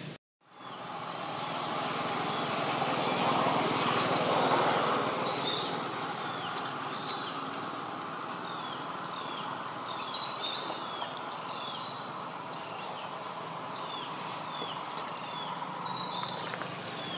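Outdoor ambience: a steady low rumble that swells about three to five seconds in, with a bird repeating short high falling chirps and, three times, a quick rising-and-falling phrase.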